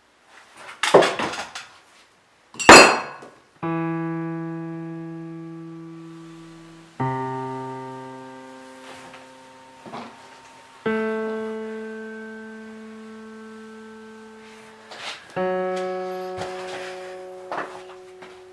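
Two sharp knocks, the second one loud, in the first three seconds. Then a slow keyboard score of four long chords, each struck and left to fade.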